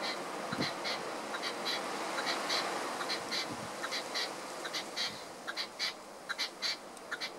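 Red-legged partridge calling: a rapid, irregular series of short, sharp notes, several a second, over a steady background hiss.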